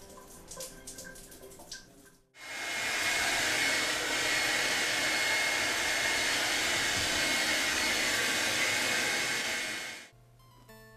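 A loud, steady whooshing noise with a faint high whine under it, cutting in abruptly about two seconds in and cutting off abruptly near the end. Soft music comes before it.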